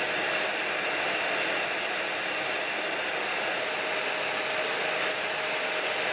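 Jet aircraft engines running on an airfield: a steady, even rushing noise with a faint thin whine held throughout.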